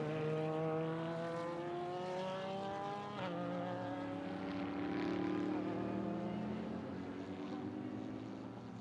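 Super GT racing car engine heard on trackside broadcast audio, its note climbing steadily under acceleration for about three seconds, then changing abruptly and running on at a steadier pitch.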